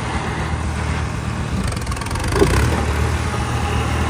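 New Holland 3630 tractor's diesel engine running steadily, a low drone, with a brief sharper sound about two and a half seconds in.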